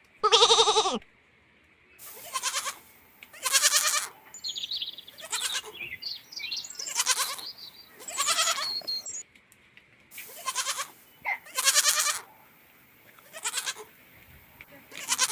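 Baby goat (kid) bleating repeatedly, about ten separate wavering calls a second or so apart.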